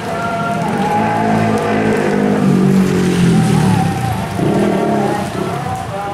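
A motorcycle engine passing close on a wet road, growing louder to a peak midway, over steady street traffic.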